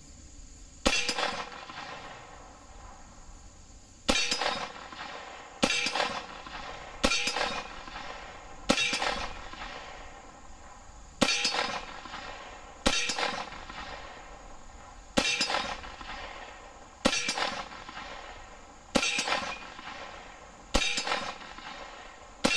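A dozen shots from a 300 Blackout AR pistol, spaced about one and a half to two and a half seconds apart, each followed by the ring of the hanging steel target being hit.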